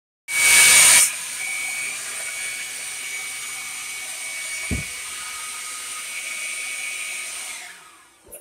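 Handheld leaf blower running with a steady high whine: loudest for the first second, then held at a lower, even speed, and winding down near the end. A brief low thump about halfway through.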